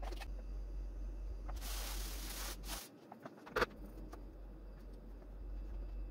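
Handling sounds of breading chicken strips. A brief rustle, hands working in a bowl of flour, comes about a second and a half in, and a single sharp click of a fork against a plastic container follows just past halfway, over a low steady hum.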